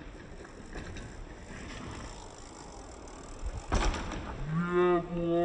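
A mountain bike landing a small road gap on gravel with a thump about four seconds in, followed by a man's long, drawn-out cheering shout held for over a second.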